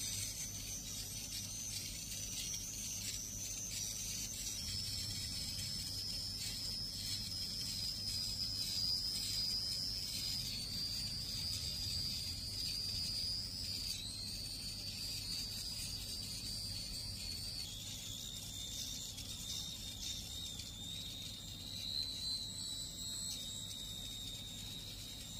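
Small battery-powered facial hair remover running against the skin with a steady high whine. The pitch drops a few times in small steps, most clearly about 14 and 18 seconds in.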